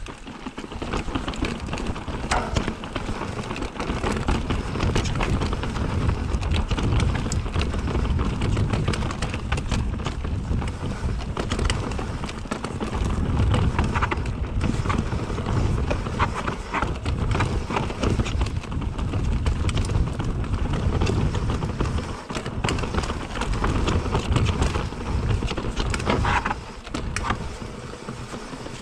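Mountain bike rolling over a rough stone-paved trail: tyres rumbling over rock, with constant rattling and clicking knocks from the bike as it crosses loose and uneven stones.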